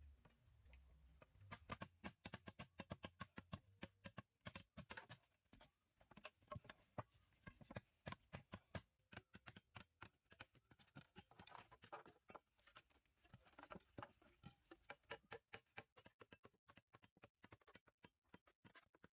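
Faint, rapid, irregular clicking and tapping, several small knocks a second, the kind made by hand work with tools or materials.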